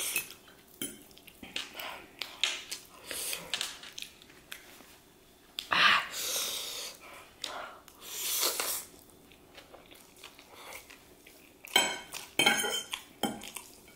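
Metal fork scraping and clinking on a plate while twirling chow mein, with noodles slurped and chewed between. There is a louder slurp about six seconds in and again a couple of seconds later, and a run of fork clinks near the end.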